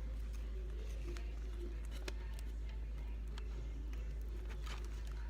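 Quiet indoor room tone: a steady low hum with a few faint, scattered clicks and taps.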